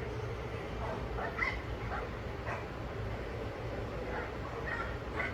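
An animal's short, high calls, repeated every half second or so with a pause in the middle, over a steady low hum.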